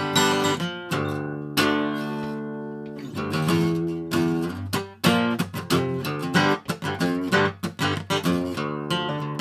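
Acoustic guitar music of strummed chords. A chord is left ringing and fading about two seconds in, then quicker rhythmic strumming starts about five seconds in.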